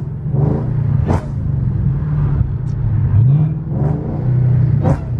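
2014 Shelby GT500's supercharged 5.8-litre V8 under hard acceleration, its pitch rising twice, with sharp exhaust cracks about a second in and near the end as the WOT Box cuts ignition in flame mode. Really loud.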